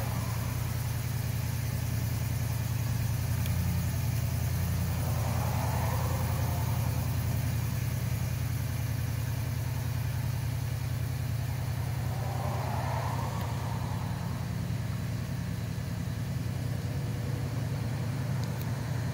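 Truck engine idling steadily in park, heard from inside the cab.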